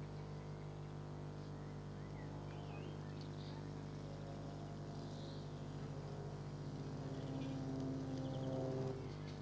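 Steady low electrical hum, with a droning engine-like sound that builds from about six seconds in and stops suddenly near the end; a few faint high chirps early on.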